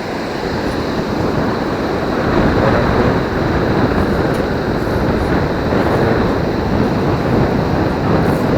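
Steady rushing wash of surf breaking and running up the beach, growing louder about two seconds in.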